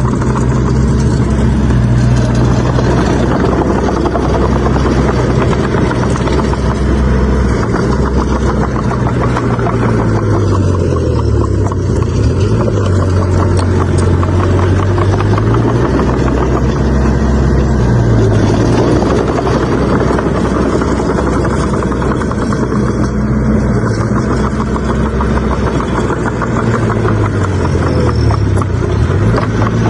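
Bulldozer's diesel engine running steadily and loud, its speed sagging for several seconds about ten seconds in, then briefly twice more, and picking back up each time.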